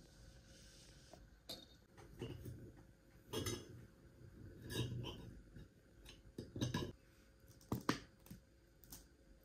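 Intermittent clatter of dishes and utensils, a light knock or clink every second or so.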